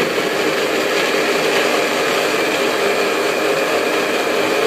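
Miyako countertop blender running steadily, grinding shallots, garlic, chilies and other spices into a wet paste.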